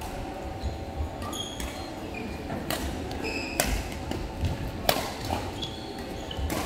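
Badminton rally: rackets striking the shuttlecock with sharp cracks about a second apart, the loudest three in the middle, mixed with short high squeaks of court shoes on the floor.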